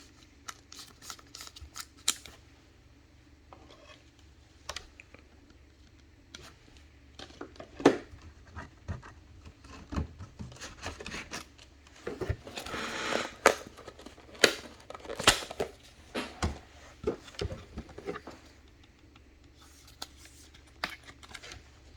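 Trading cards and packs being handled: scattered clicks and scrapes as cards are flicked and slid against each other, with a longer rustling scrape a little past the middle.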